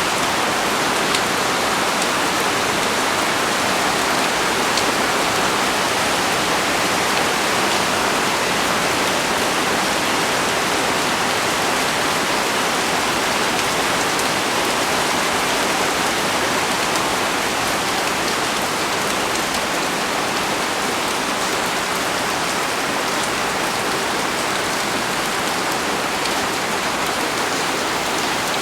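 Heavy rain pouring steadily onto leaves, a dense even hiss with faint scattered drop ticks.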